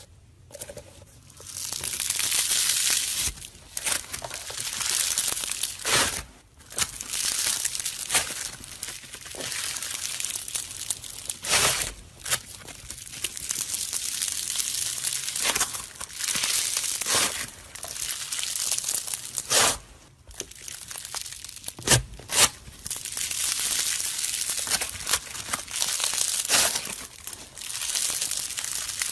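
Slime being squeezed and stretched by hand: a dense, crackly hiss in waves, with sharp snaps and pops every second or two.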